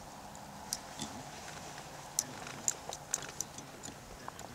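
Light, irregular ticks and clicks, about a dozen, from fingers and tying thread working a bunch of opossum hair onto a red tube fly held in a fly-tying vice.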